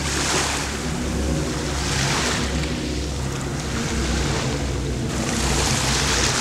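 Small sea waves washing against shoreline rocks, surging and falling back every second or two over a low steady rumble.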